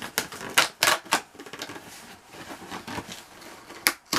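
A cardboard package being pulled and torn open by hand: several sharp snaps and rips in the first second, quieter crackling and rustling after, and another sharp snap near the end.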